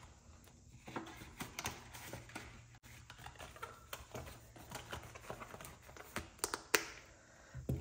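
Paper banknotes and the binder's plastic envelope pages rustling and tapping as cash is tucked into a ring-binder budget wallet and the pages are flipped, with a few sharper clicks near the end as the binder is folded shut.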